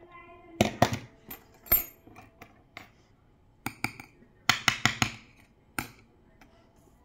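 Metal clinking and tapping on a tiled floor: a brass padlock and a thin steel rod being handled and set down. There are about a dozen sharp knocks in irregular clusters.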